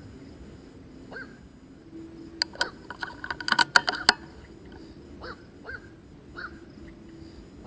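Short animal calls repeating every half second to a second, each a quick rise and fall in pitch. About two and a half seconds in comes a quick run of sharp clicks lasting under two seconds, louder than the calls.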